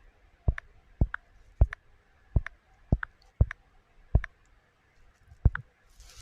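A series of about nine sharp clicks at uneven intervals, each a dull low tap followed at once by a lighter, higher tick.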